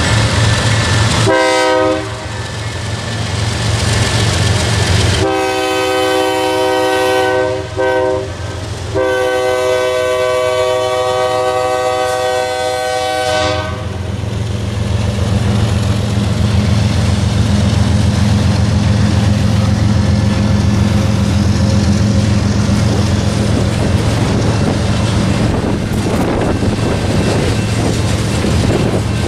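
Freight train rolling past with a steady rumble and wheel clatter as diesel locomotives and then loaded freight cars go by. A multi-note train horn sounds a short blast about a second in, then from about five seconds a long blast, a brief one and another long blast that ends near the middle.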